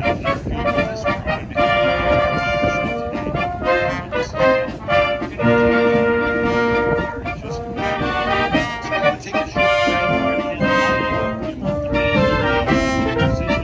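Czech Army military brass band playing a tune together, with trumpets, trombones and tubas.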